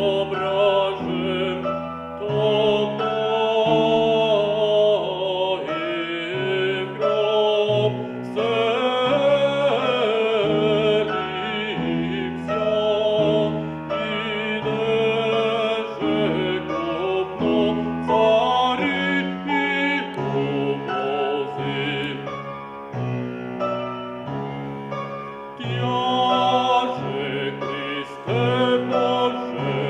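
A male baritone sings a classical art song with vibrato, accompanied by a grand piano.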